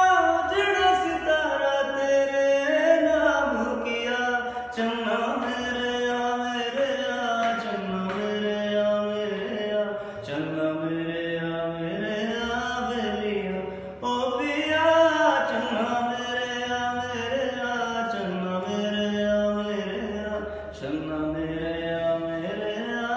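A man singing a slow Hindi film melody solo, holding long notes that slide between pitches.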